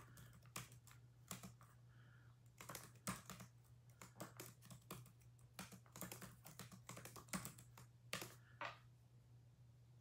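Faint typing on a computer keyboard: irregular keystrokes and clicks, over a low steady hum.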